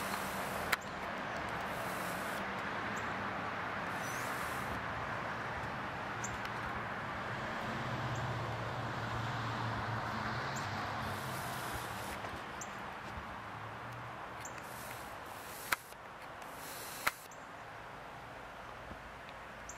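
Steady outdoor rushing noise with a low hum underneath that swells about eight to eleven seconds in and then fades. A few sharp clicks: one near the start and two near the end.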